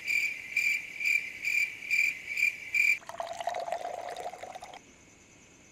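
Crickets chirping in a steady high pulse, about two chirps a second. About three seconds in the chirping stops and liquor is poured into a glass tumbler for nearly two seconds.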